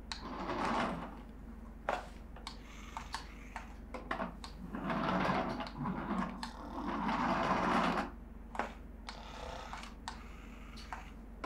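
Small electric motor of a toy remote-control car whirring in several short bursts as it is driven back and forth.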